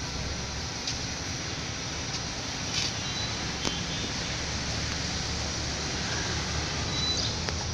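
Steady low rumble and hiss of background noise, with a few faint short clicks.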